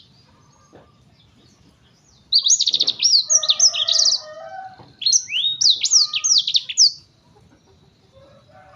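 Black-throated canary (blackthroat) singing two quick, loud song phrases of rapid high trills and sweeping chirps. The first begins about two seconds in and the second follows almost at once, each lasting about two seconds.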